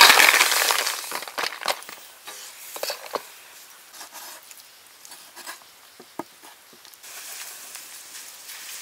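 Snails clattering into a hot wok and sizzling loudly, the sizzle fading over about a second and a half. Then scattered light knocks of a cleaver on a wooden chopping board, and a faint steady hiss near the end.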